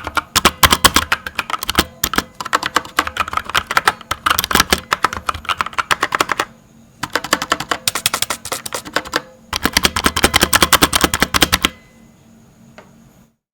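Kodessa KDA61 60% mechanical keyboard with Outemu Brown switches being typed on quickly: rapid key clacks in several bursts with short pauses between them. The typing stops about two seconds before the end.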